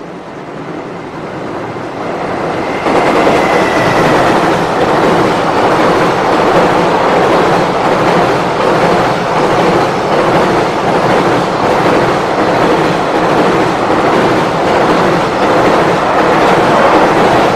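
Long container freight train hauled by a JR Freight EF210 electric locomotive crossing a steel girder railway bridge. The rumble and clatter of the wheels on the bridge grows as it approaches, jumps louder about three seconds in, then stays loud and steady as the container wagons pass.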